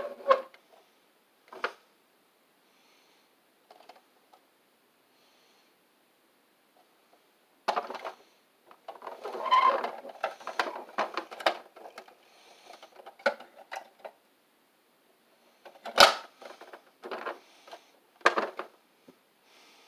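Plastic toy garbage truck being handled and moved on a wooden surface: scattered clicks, knocks and plastic rattles. A few clicks, a quiet stretch of several seconds, then a busier run of clatter and a few sharper knocks near the end.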